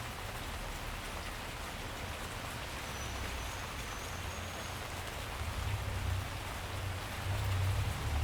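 Steady rainfall, an even hiss of many drops, with a low rumble underneath that swells in the last few seconds.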